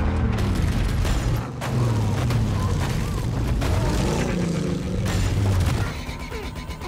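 Car engines revving hard in a film car-chase sound mix, their pitch rising and falling, over a heavy low rumble that drops away about six seconds in.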